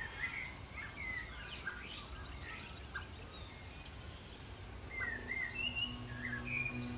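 Birds chirping, a stream of short, quick whistled calls and twitters. A low, steady music drone comes in near the end.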